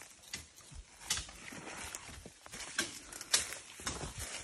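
Footsteps on a ground of dry fallen bamboo leaves: irregular crackles and rustles with a few sharper snaps.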